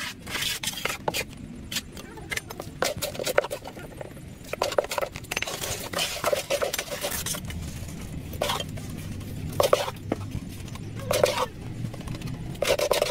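Steel trowel scraping and knocking on concrete in a wooden mould, with a gravelly concrete mix poured and spread: an irregular run of short scrapes, clinks and knocks. A low rumble runs underneath from about halfway through.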